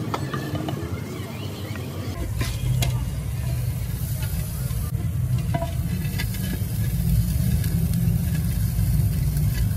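A spoon scraping and clicking against clay pots as thick chicken korma is ladled out and spread. From about two seconds in, a steady low rumble lies under the occasional clicks.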